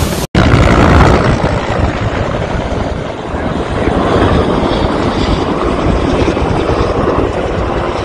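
Wind and fire rushing loudly around a fire whirl over a burning field, with wind buffeting the microphone in a heavy low rumble. The sound breaks off for an instant a fraction of a second in.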